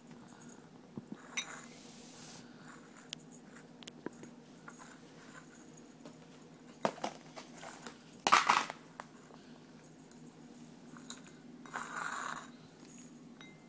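A puppy eating from a ceramic bowl: scattered small clinks and clicks of food and muzzle against the bowl, with crunching. There is a louder clatter about eight seconds in and a short scraping rustle near the end as a hand reaches into the bowl.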